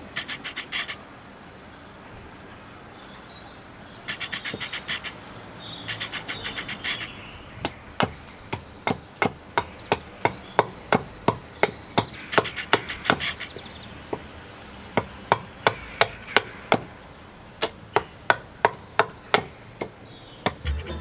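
Hatchet chopping a wooden bowl blank on a chopping block: sharp, even blows about two to three a second, in runs with short pauses, starting about a third of the way in.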